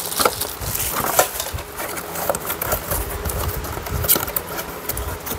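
A clear plastic bag crinkling and rustling as a bagged item is handled and laid down on a rubber mat, with a few dull knocks.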